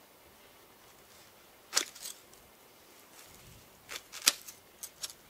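A few light, sharp clicks and taps at uneven intervals over a quiet hiss: one pair a little under two seconds in, then a quick cluster of about five near the end, the loudest a little past four seconds in.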